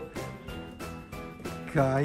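Background music with a steady beat of about four strokes a second, and near the end a man starts a long drawn-out call.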